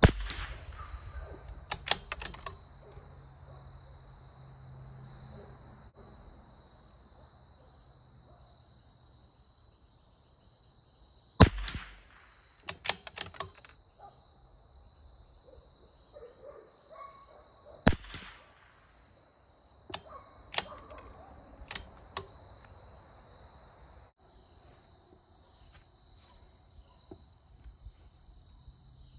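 CZ 457 Varmint bolt-action .22 LR rifle firing three single shots, the first right at the start, the second about eleven seconds in, the third about six seconds after that, each followed by a run of light metallic clicks from the bolt being worked. A steady high insect buzz runs underneath.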